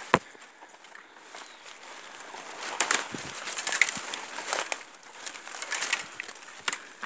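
Dry leaf litter and twigs rustling and crackling in irregular bursts, busier from about three seconds in.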